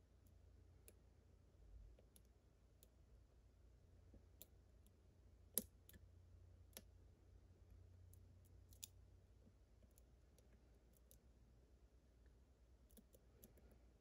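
Faint, scattered clicks of a lock pick working the pins of a Łucznik E8 lock under a tension wrench, with one sharper click about halfway through.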